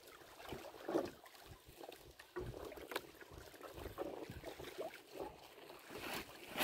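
Choppy waves slapping and splashing irregularly against the hull of a small wooden outrigger boat, with a few sharp knocks and some wind on the microphone.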